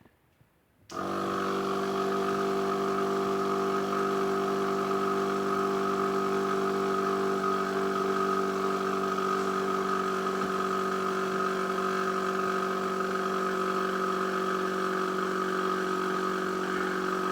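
Electric air compressor starting about a second in, running steadily with an unchanging hum, and cutting off near the end.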